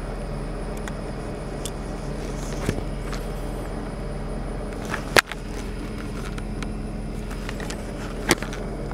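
Car engine idling, heard from inside the cabin as a steady low hum, with a few sharp clicks and knocks, the loudest about five seconds in and another near the end.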